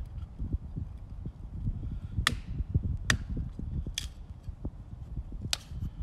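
A big Wenger Wolverine knife chopping into a fallen log: four sharp strikes over the second half, the middle three about a second apart, each ringing briefly, over a low rumble of thuds.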